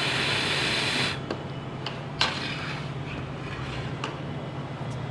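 A steady hiss, like air or spray, that cuts off about a second in, over a constant low hum; then a few light clicks and taps, the sharpest about two seconds in.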